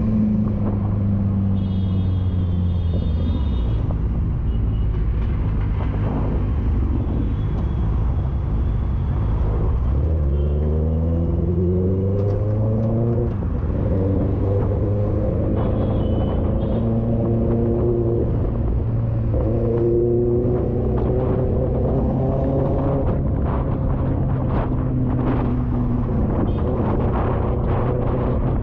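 Motorcycle engine running while riding in traffic, its pitch falling early on as it slows, then climbing as it accelerates about ten to thirteen seconds in, dipping briefly at a gear change, and climbing again near twenty seconds, over steady road rumble.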